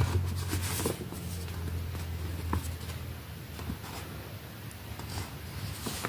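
Paper rustling and light clicks from a plastic debit card being handled in its folded paper carrier, over a low hum that is strongest in the first second.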